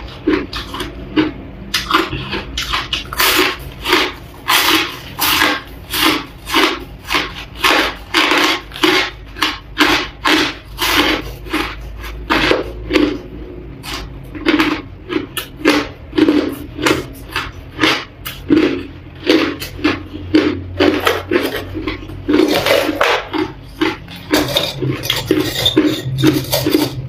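Crushed ice being bitten and chewed close to the microphone: a steady run of crisp crunches, about two a second.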